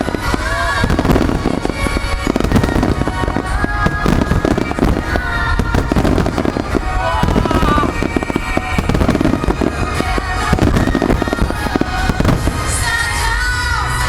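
Fireworks bursting in rapid, continuous succession, many overlapping bangs and crackles, with music playing along with the show.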